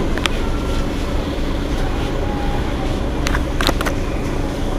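Mercedes-Benz Citaro facelift city bus's diesel engine idling steadily while the bus stands at a stop, with a few short sharp clicks a little past halfway.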